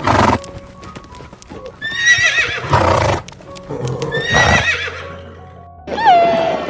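A horse whinnying: two neighs with a trembling, wavering pitch, about two and four seconds in, after a short loud burst at the start. Just before the end a different call begins, sliding down in pitch.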